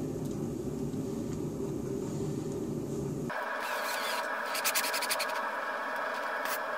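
Cordless drill running against a brass trigger plate set into a wooden rifle stock, as a screw hole is worked. A low steady hum shifts abruptly to a higher-pitched whir about a third of the way in, with a few sharp clicks near the end.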